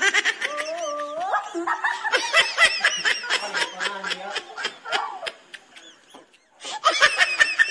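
Several people laughing in quick, rapid bursts, with high-pitched squeals and voices mixed in. The laughter breaks off briefly near the end, then a fresh burst starts.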